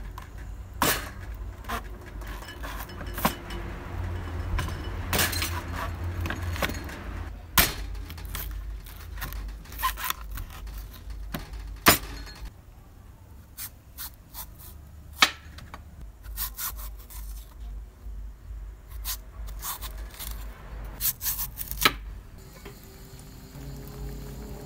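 A large kitchen knife chopping an elephant foot yam stalk on a wooden cutting board: irregular sharp knocks as the blade hits the board, with scraping and rubbing between the cuts. The knocks stop shortly before the end.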